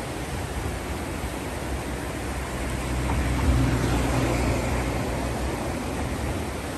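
Steady rushing of a river in flood, its swollen muddy water running fast. A low rumble swells up about three seconds in and fades again a couple of seconds later.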